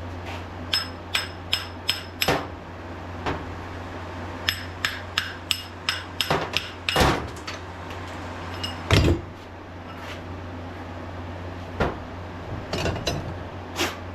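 Hammer striking a punch to drive the bearings out of a belt grinder's 2-inch flat platen wheel: groups of quick metallic taps that ring, with a few heavier blows. A steady low hum runs underneath.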